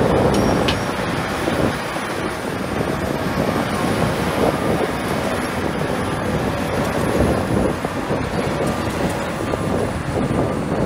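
Heavy earthmoving machinery's diesel engine running steadily, with a faint high whine that wavers in pitch above it.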